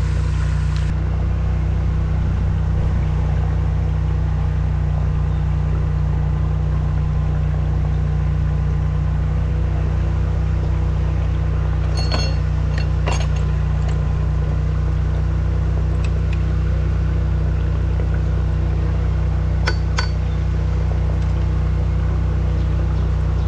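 High-pressure drain jetter's engine running with a steady low drone, over water gushing from a freshly cleared stormwater pipe into the gutter. A few sharp clinks come about twelve, thirteen and twenty seconds in.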